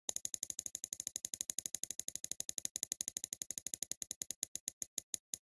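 Spinning prize-wheel ticking sound effect: rapid clicks, about fifteen a second, that slow steadily to a few a second as the wheel winds down towards its pick.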